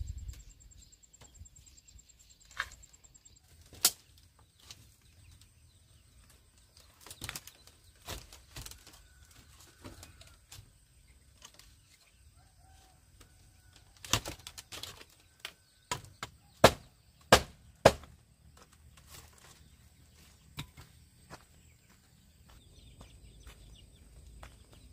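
Scattered sharp knocks and clatter of dry bamboo slats as a woven bamboo panel is worked into place against a bamboo frame. The loudest are three knocks in quick succession about two-thirds of the way through, and a low rustle of bamboo builds near the end.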